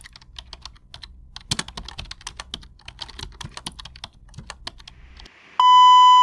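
Computer keyboard typing: an irregular patter of keystroke clicks for about five seconds. Near the end it gives way to a loud, steady high beep lasting under a second, the test tone that goes with TV colour bars.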